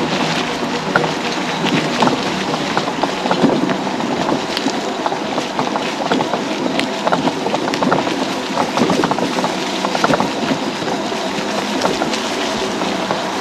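Electric mobility scooter driving over a rough forest trail: the steady hum of its motor, with frequent clicks and knocks as the tyres roll over leaves and sticks.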